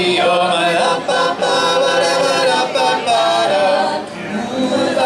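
A cappella vocal group singing in harmony, several voices holding chords together, with a short drop in loudness near the end.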